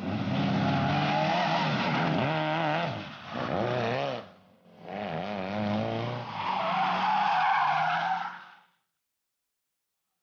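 Historic rally car engines revving hard around a hairpin, the pitch rising and falling through gear changes, with tyre squeal in the bend. The sound is in two parts, broken about four and a half seconds in, and cuts off suddenly near the end.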